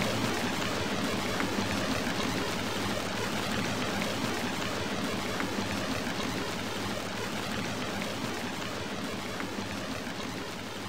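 Steady hiss with a faint low hum, slowly fading.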